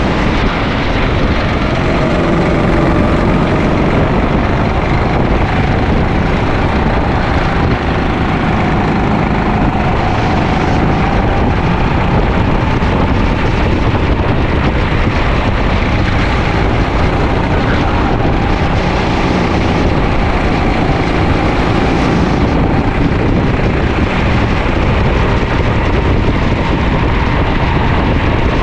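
Sodi LR5 rental kart's engine running flat out on track, its pitch wavering up and down as the revs change, with steady noise from air and tyres over the onboard microphone.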